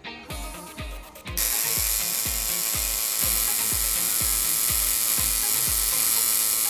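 Electric tattoo machine buzzing as it inks, starting up about a second and a half in, over background music with a deep kick drum about twice a second.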